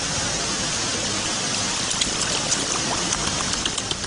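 Steady rushing water noise, with small sharp high ticks from about two seconds in.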